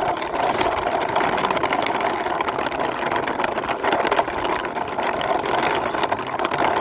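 Toy vehicle pushed along by hand, its plastic wheels and gears giving a steady, rapid whirring rattle.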